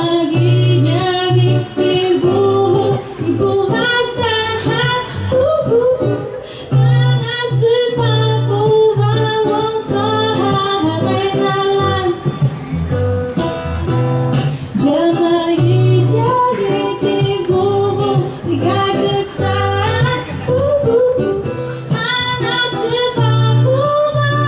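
A woman singing a song in Paiwan, accompanied by an acoustic guitar played live.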